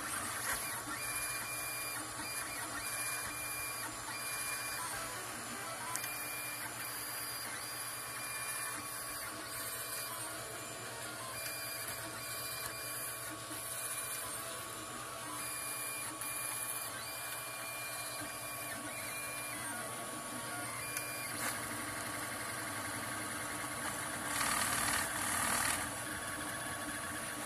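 FDM 3D printer printing: its stepper motors whine in stop-start tones as the print head moves, over the steady hum of the extruder's cooling fan. A louder rushing noise rises for about a second and a half near the end.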